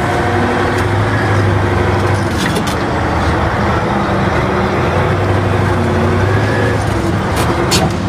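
Caterpillar 988B wheel loader's diesel engine running steadily under load while it lifts and carries a marble block, with a few sharp clanks about two and a half seconds in and near the end.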